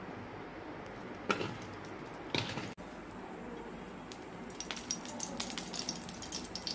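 Two short knocks as marinated fish pieces are handled in a steel bowl, then hot cooking oil poured into a frying pan starts to crackle and spit, the crackles growing denser toward the end.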